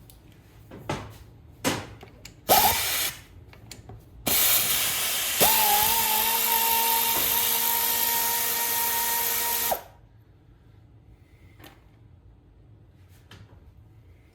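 Hand-held power tool: a brief trigger pull about two and a half seconds in, then a run of about five seconds with a steady whine over a loud hiss, cutting off sharply. A few light tool clicks come before it.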